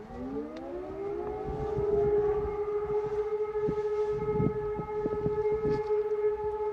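Civil defense sirens sounding for the monthly siren test, starting up: the pitch rises over about the first two seconds, then holds a steady tone.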